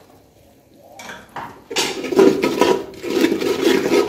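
Metal spoon scraping and stirring ground spices and salt in a little oil in a metal pot. Quick repeated scrapes start about a second in, as the masala is being fried.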